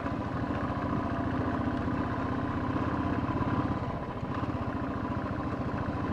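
Motorcycle engine running steadily at low road speed, with an even, rapid pulsing beat. It eases off briefly about four seconds in.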